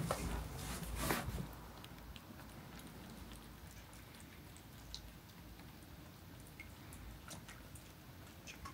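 Cats eating from bowls: faint chewing and small scattered clicks of food, after a couple of soft knocks in the first second or so.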